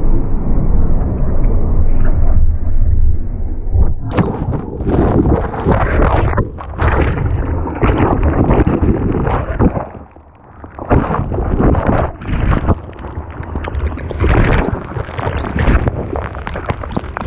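Loud ocean water and wind rushing over a waterproofed action camera in big surf. It is dull and muffled for the first four seconds, then turns into harsh, splashing gusts, with a brief lull about ten seconds in.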